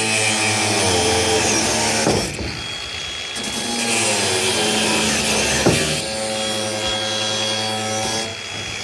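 A power saw running and cutting, its motor whine shifting in pitch as it works through the material, with two sharp sounds, about two seconds in and near six seconds.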